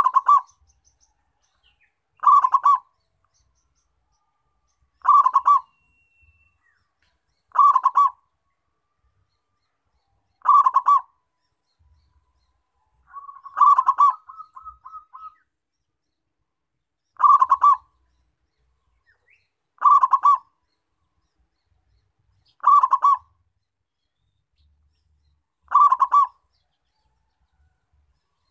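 Zebra dove (perkutut) cooing: a short rolling phrase repeated about every three seconds, with a longer stuttering run of quick notes about halfway through.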